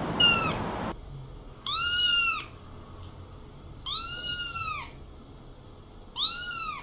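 A domestic cat meowing three times, about two seconds apart. Each meow is a drawn-out, high call that rises and then falls in pitch.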